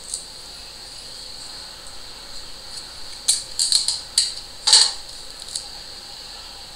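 Clear adhesive tape being pulled off the roll and torn: a quick run of short crackly rasps about halfway through, the last one the loudest.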